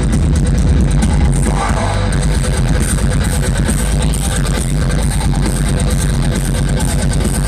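Heavy metal band playing live: distorted electric guitars, bass and drums through a festival PA, poorly recorded from the crowd with a heavy, muddy low end.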